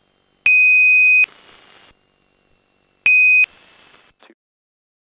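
Two electronic beeps from the cockpit audio, a steady high tone that starts and stops abruptly. The first lasts under a second and the second is about half as long, each with a faint hiss of the intercom around it.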